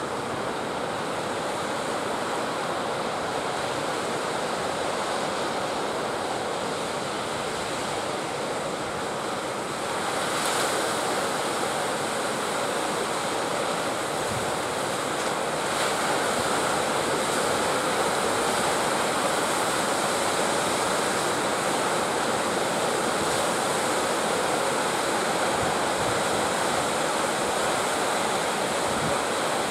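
Ocean surf breaking close by: a steady wash of waves that grows louder about ten seconds in and again a few seconds later.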